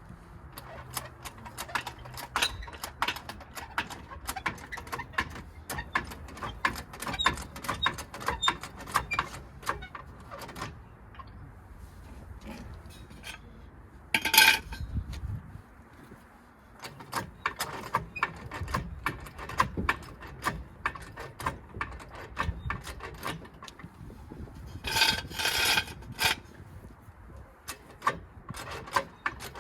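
Metallic clicking and rattling of hand work on a car, dense for the first ten seconds or so. A single loud clank comes about 14 seconds in, and a ringing metal clatter about 25 seconds in.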